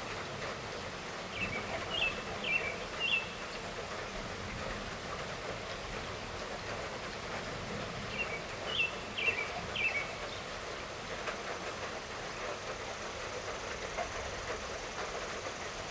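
Steady light rainfall. A bird calls twice over it, each time a quick run of about four short high chirps, the first about a second in and the second about eight seconds in.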